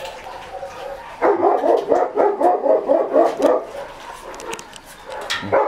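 Shih Tzu puppies yapping and whining, a rapid run of high-pitched yaps for about two seconds starting about a second in, with a few more calls near the end, as they wait to be fed.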